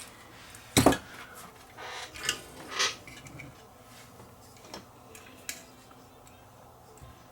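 Scattered clicks and knocks of small tools and parts being handled on a workbench, the loudest about a second in, with a few lighter taps after it.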